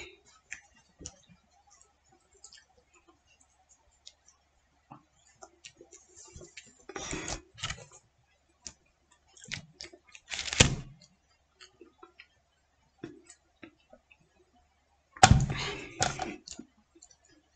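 Scattered light clicks and knocks of dishes, glasses and objects being handled on a dining table, with a few louder clusters of thumps and rustling about seven, ten and fifteen seconds in.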